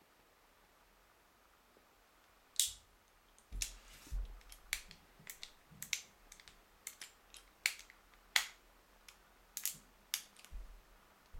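Irregular sharp clicks and crinkles of hands handling a Shimano Chronarch 51E baitcasting reel and a small plastic bag of spare parts. The first loud click comes about two and a half seconds in, followed by a dozen or so more at uneven intervals.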